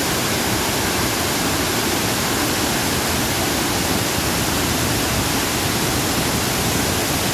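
Heavy flow of water pouring over a full, overflowing dam's spillway and rushing down the concrete face, a steady, even rush of water.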